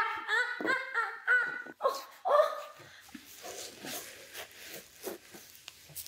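A woman gives a quick run of short, high-pitched cries in reaction to her neck being manipulated, loudest in the first two and a half seconds. These are followed by a few faint clicks.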